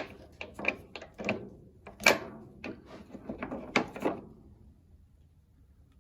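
Old spark plugs, just removed and sooted black, being handled: a quick, irregular series of clicks and knocks that stops about four seconds in.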